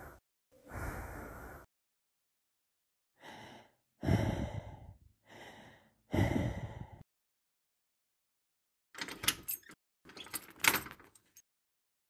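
A string of separate sound effects: a long noisy breath, then two pairs of loud rasping breaths, each a short weak one followed by a longer, louder one. Near the end comes a couple of seconds of clicks and rattles from a lock being worked.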